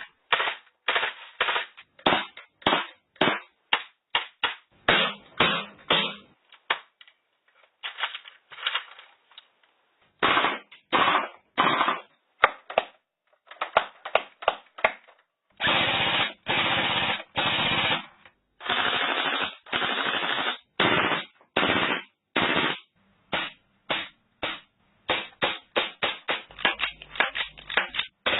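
Airsoft gun dry-firing with no BBs loaded: a run of quick single shots about two a second, then a series of short full-auto bursts of about half a second each, then rapid single shots again near the end.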